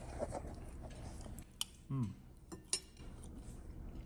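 Light clinks of a spoon against ceramic breakfast dishes: two sharp ticks about a second apart. Between them, about two seconds in, comes a short, low vocal sound that falls in pitch.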